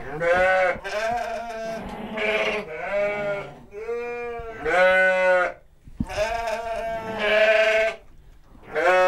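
Bottle-fed lambs bleating over and over: about eight loud calls, each under a second long and roughly a second apart.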